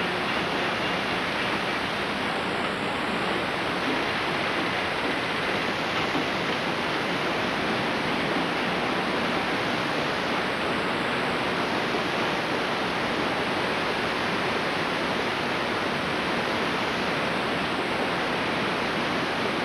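Steady hiss of static from a blank stretch of analog videotape: an even noise with no other sound in it.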